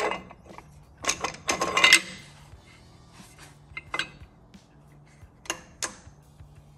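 Metal clinks and clatter as a Top Fuel dragster clutch disc is slid by hand over a steel dummy shaft and onto the clutch stand pins. There is a quick run of clinks about a second in, then a few single clicks.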